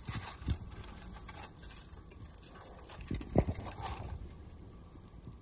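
Handling noise in a car: light rustling and scattered small knocks as a paper receipt and other items are handled, with one louder knock about three and a half seconds in.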